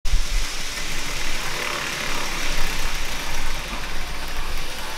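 N-gauge model freight train running along the track: a steady rattle of wheels on rail with the locomotive's small motor, over a low hum.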